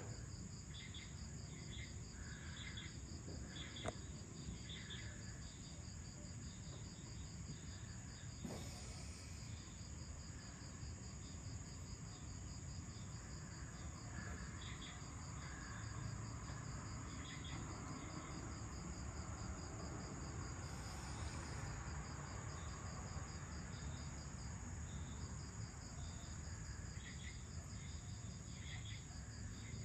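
Evening insect chorus: a steady high-pitched trill with a fast, even pulsing just below it, joined now and then by shorter chirps, over a low rumble. Two brief clicks come about 4 and 8½ seconds in.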